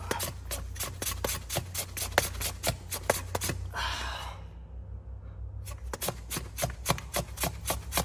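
Hand pump of a coolant system pressure tester being stroked over and over, a quick run of clicks about three a second with a short break a little past halfway, pressurising the engine's cooling system toward 21 PSI. A low steady hum runs underneath.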